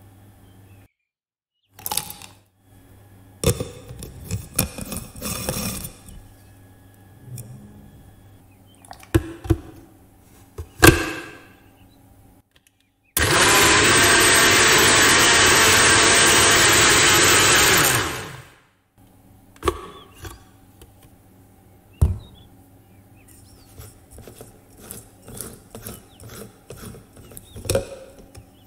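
Personal blender motor running on a jar of milkshake for about five seconds: it starts suddenly and then winds down. Before and after it come short knocks and clatter of bowls and ingredients being set down and handled.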